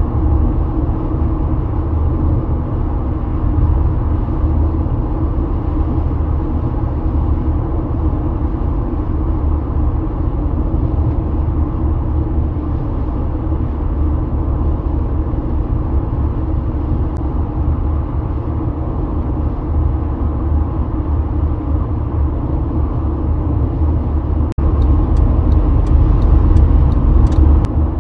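Steady low rumble of a car's tyres and engine at highway speed, heard from inside the cabin. About three-quarters through it briefly dips, then comes back louder, with a few faint ticks near the end.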